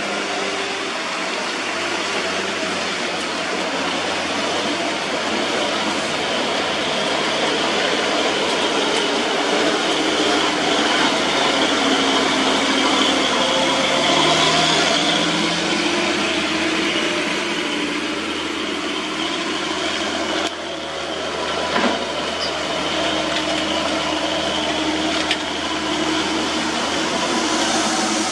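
Hino diesel truck hauling a tank container, its engine running under load as it passes close by, with tyres hissing on wet asphalt; loudest about halfway through as the truck goes past.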